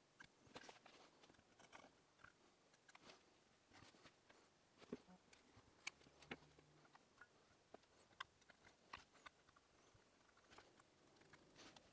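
Near silence, with faint, scattered small clicks and scrapes from metal tweezers and fingers working a cotton wick in behind the coils of a rebuildable dripping atomizer.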